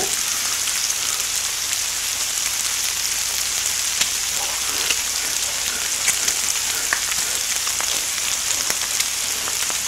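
Pork belly (samgyeopsal) sizzling steadily on a flat griddle, a constant frying hiss with a few faint pops and crackles.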